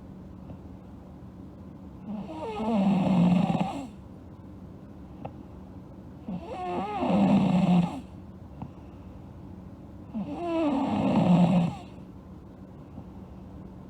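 A sleeping girl snoring in a steady rhythm: three snores, each about a second and a half to two seconds long, roughly every four seconds.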